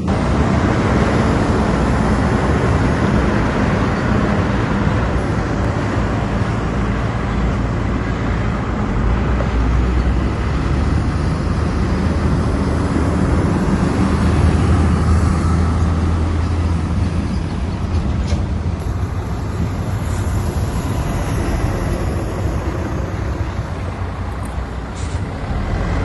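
Komatsu bulldozer's diesel engine running steadily as the machine works, with a broad grinding noise over a deep rumble that swells for several seconds midway.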